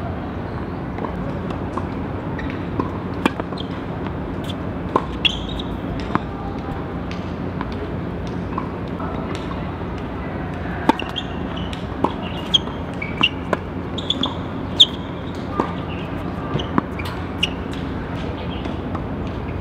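Tennis balls being struck by rackets and bouncing on the court: sharp pops at irregular intervals, often about a second apart, over a steady background hum.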